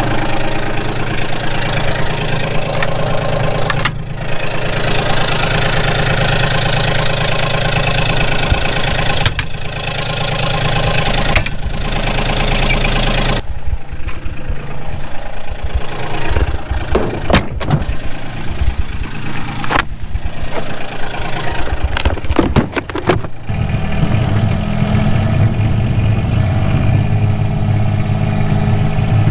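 A vehicle engine running, with abrupt changes every few seconds as if several clips are joined. There is a stretch of irregular knocks in the middle, and a strong steady low hum near the end.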